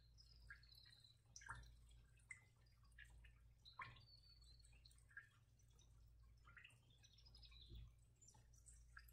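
Near silence: quiet room tone with a steady low hum, dotted with faint, scattered high chirps and drip-like ticks.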